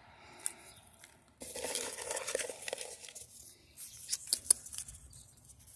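Crinkly rustling for a second or two, then a few sharp clicks near the end.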